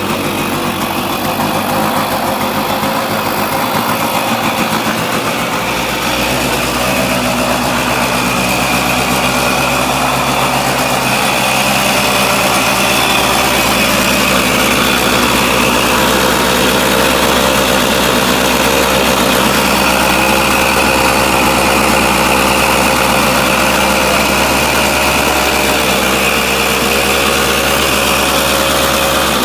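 Two-stroke single-cylinder engine of a 1980 Yamaha YT125, rebuilt with a DT175 cylinder and reed intake, running steadily after its first start. Its note shifts slightly about six seconds in.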